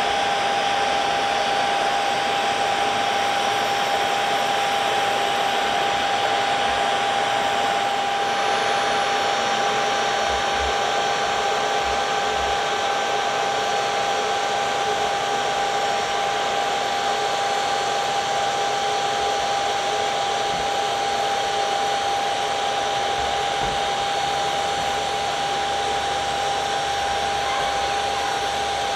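Jet aircraft engines running steadily at low power: a constant high whine over an even rushing roar, with no change in pitch or level.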